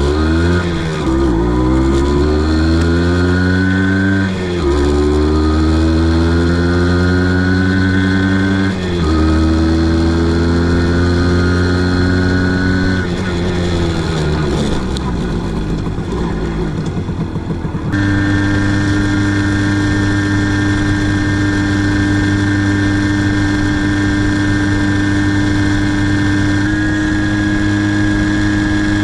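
Sachs 506/4 two-stroke moped engine accelerating through the gears, its pitch climbing and dropping back at each of three upshifts. It then slows with a falling note, and from about 18 seconds in it runs steadily at a constant speed.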